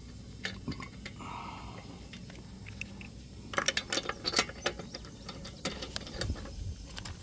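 Lug nuts being spun onto the wheel studs by hand, light metallic clicking and rattling, with a denser run of clicks about halfway through.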